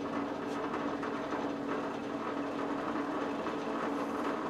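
Benchtop drill press motor running with a steady hum while its twist bit bores into the end grain of a wooden stick.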